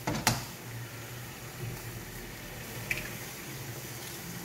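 An egg cracked sharply on the rim of a stainless-steel wok about a quarter second in, then slipping into the pan of sautéed mushrooms over a low steady hiss from the pan, with a smaller click near three seconds.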